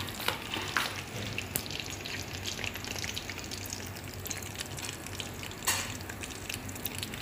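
Chicken nuggets deep-frying in a pot of hot oil: a steady crackling sizzle, with a few louder pops, the biggest one near the end.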